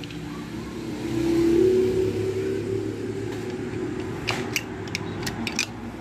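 Steady low engine hum that swells between about one and three seconds in, then eases, with a few light clicks near the end.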